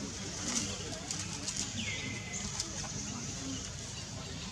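A small animal giving one short call that slides down in pitch, about two seconds in, amid a few light sharp clicks.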